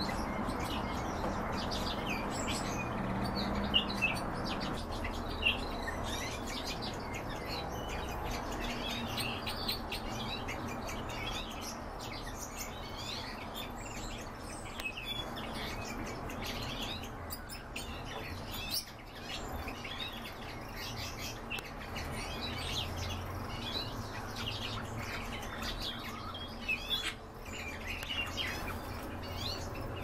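Several cage birds chirping: many short high chirps scattered throughout, with a few louder sharp notes near the start and near the end.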